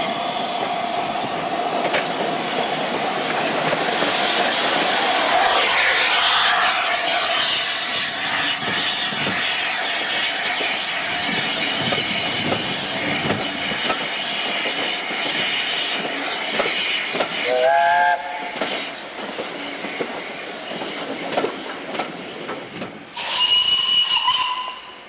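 A train running on the rails below, with steady rumble and wheel clatter. Near the end comes a steam locomotive's whistle, one steady blast, after a brief rising whistle-like call about two-thirds of the way through.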